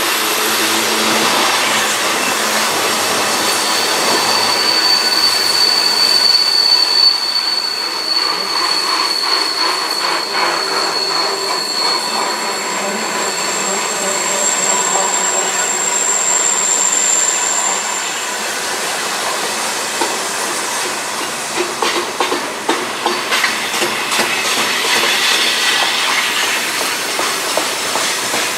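Freight train cars rolling past on a curve: steady wheel-on-rail noise, with high wheel squeal held for several seconds twice in the first two-thirds. Near the end comes a run of uneven wheel clicks.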